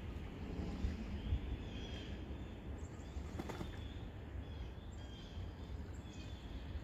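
Pond-side ambience: a steady low rumble, with faint, scattered high bird chirps and a brief rustle or click about three and a half seconds in.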